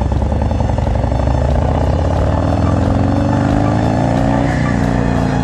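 Harley-Davidson FXDR's 117-cubic-inch Milwaukee-Eight V-twin running loud through a Bassani Road Rage exhaust while under way. The engine note climbs for a couple of seconds and then drops about four and a half seconds in.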